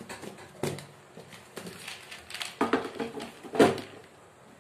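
Plastic mixer-grinder jar being handled and set down onto the motor base, giving a few sharp knocks and clunks, the loudest about three and a half seconds in.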